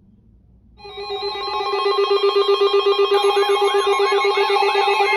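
Weather radio receivers going off with the alert for a new severe thunderstorm warning: about a second in, a loud, rapidly pulsing alarm tone starts, and a couple of seconds later a warbling tone that rises and falls a couple of times a second joins it.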